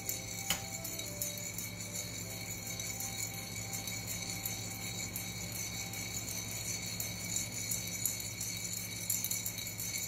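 Coffee beans rattling inside a ceramic hand roaster as it is swirled over a gas burner, during the yellowing stage of the roast. There is a sharp click about half a second in.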